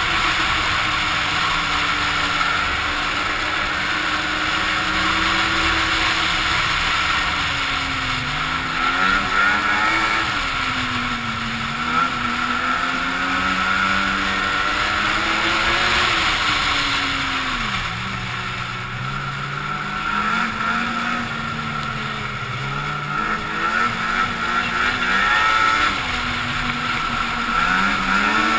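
Ski-Doo snowmobile engine running along a trail, its pitch rising and falling as the throttle is worked, easing off briefly about twelve seconds in and running lower for several seconds past the middle, under a steady rushing hiss.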